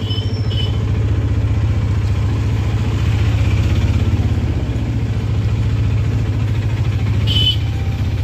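Auto-rickshaw engine running steadily as it drives, heard from inside the rickshaw, with a fast, even low throb. Short vehicle horn toots sound at the start and again about seven seconds in.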